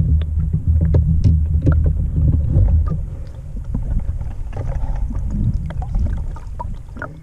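Strong wind buffeting the microphone as a heavy low rumble, easing after about three seconds. Scattered knocks and clatter of gear handled in a small boat run through it, as a landing net is picked up near the end.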